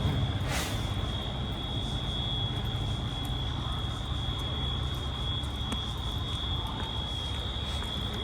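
Fire engine idling with a steady low rumble, under a constant thin high-pitched tone, with a short hiss about half a second in.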